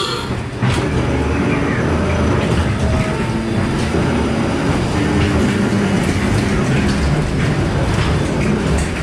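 Ghost train ride car running along its track in the dark, a steady mechanical rumble and clatter.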